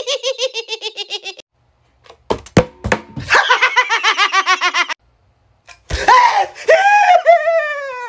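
Exaggerated ha-ha-ha laughter, about eight pulses a second, falling in pitch, in three bursts. A few sharp knocks come about two and a half seconds in.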